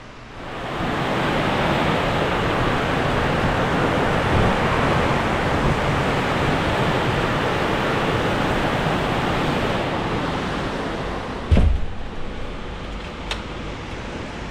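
Heavy rain falling steadily, easing a little near the end, with a single thump about two-thirds of the way through.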